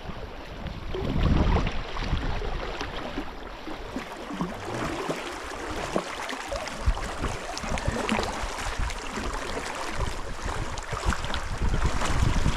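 Water sloshing and splashing close by, with many small splashes and drips and two louder stretches, about a second in and near the end.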